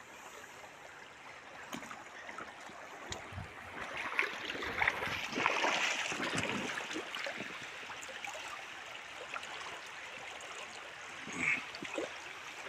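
Shallow river water running over stones, with irregular splashing and sloshing from about four to seven seconds in as hands hold a brown trout in the current to revive it before release.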